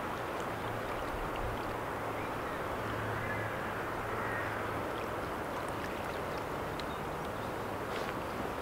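Steady wind noise on the microphone, with water lapping at the bank.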